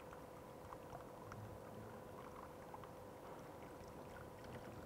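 Faint trickle of water poured from a plastic bottle into the priming pipe of a centrifugal water pump, with scattered small ticks, over a steady faint hum. The pump is being primed, filled with water before it is started.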